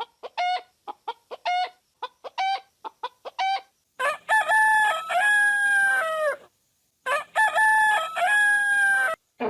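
Chickens clucking in short, pitched calls that come in pairs, then a rooster crowing twice, each crow about two seconds long.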